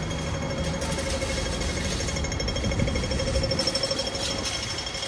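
A fast, steady mechanical rattle, pulsing rapidly and evenly, over a constant street-noise background.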